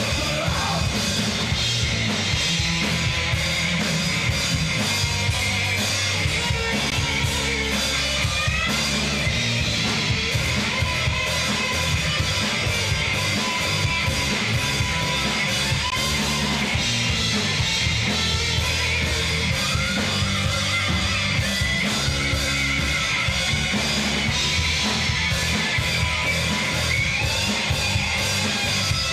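A live heavy rock band playing loud and steady, with distorted electric guitar, bass guitar and drums, and yelled vocals over the top.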